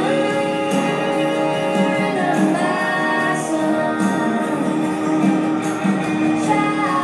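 Recorded music with singing over sustained accompaniment, played through a theatre's sound system and heard from the audience seats.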